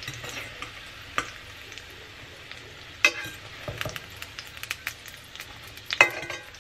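Sardine cakes sizzling in hot olive oil in a stainless steel frying pan, a steady hiss. A metal fork clinks sharply against the pan about a second in, more loudly about three seconds in, and loudest near the end as the cakes are lifted out.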